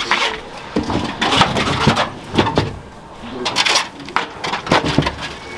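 A string of irregular thumps and knocks, several of them close together, over low background noise.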